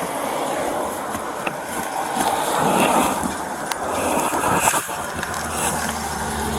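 Road traffic going by, with tyre noise swelling to a peak about three seconds in and then easing off, and a few sharp clicks.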